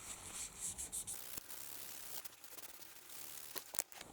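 Faint rubbing and scrubbing as thermal paste is wiped off the base of a CPU cooler, with a few light clicks.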